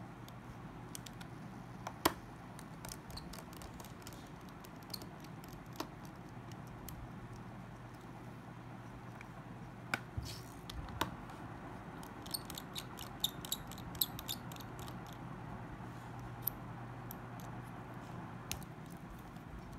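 Scattered small sharp clicks and taps of a mobile phone's small parts being handled during disassembly, with a quick run of light ticks about twelve to fifteen seconds in, over a steady low hum.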